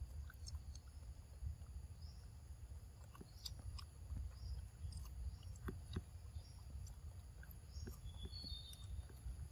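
Outdoor forest ambience: a steady low wind rumble on the microphone, a steady high insect hum and a few faint bird chirps, the clearest near the end. Scattered soft clicks from a macaque chewing fruit, the strongest about three and a half and six seconds in.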